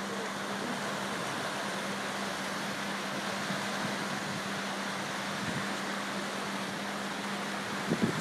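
Small waves breaking and washing up on a sandy beach: a steady rushing hiss of surf, with a few low thumps of wind on the microphone near the end.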